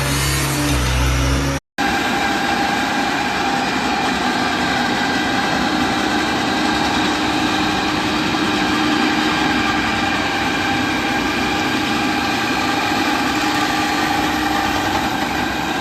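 A machine's engine running at a steady speed with a constant hum. The sound breaks off briefly about two seconds in, then goes on unchanged.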